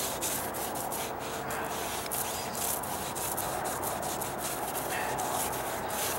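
Small paint roller rolling primer onto a deck stair tread: a steady wet rubbing, swelling and dipping with the back-and-forth strokes.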